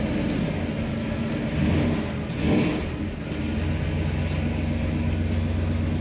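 1976 Ford Torino's engine idling steadily, swelling briefly in the middle.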